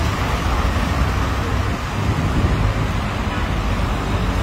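City street traffic, cars driving past close by, with wind rumbling on the phone's microphone.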